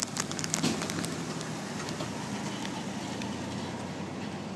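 Crinkling and crunching from eating nuts for about the first second, then steady road traffic noise from a car going by.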